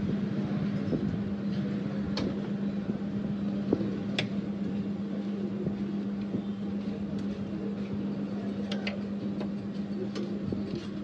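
A steel ladle clinks now and then against a steel serving bowl and pot as curry is ladled out, about half a dozen short clinks, over a steady low hum.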